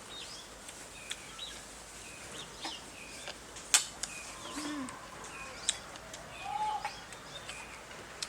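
Chickens calling, with repeated short high chirps and a couple of lower clucks. Several sharp knocks come through, the loudest a little before the middle.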